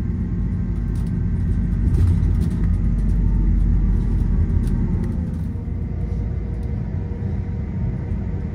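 Steady low rumble of a moving passenger vehicle, with faint scattered rattles and ticks.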